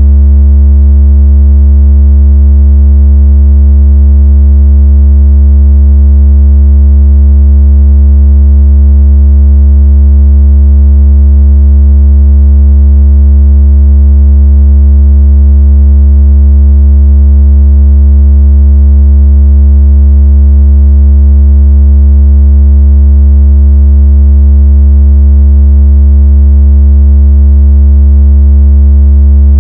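A synthesized deep, buzzing tone held steady and very loud without a break: a strong-vibration sound effect played to shake water out of a phone speaker.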